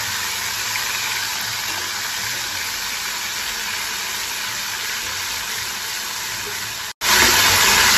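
Ginger-garlic paste frying in hot oil with cumin and curry leaves in a steel pan: a steady sizzle. Near the end it breaks off for an instant and comes back louder.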